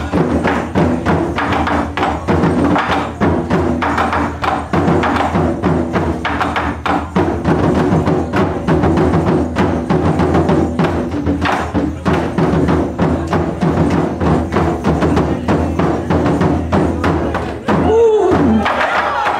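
Taiko ensemble drumming: large Japanese barrel drums struck hard with wooden sticks in a fast, continuous rhythm. Near the end a voice calls out once, in a falling pitch.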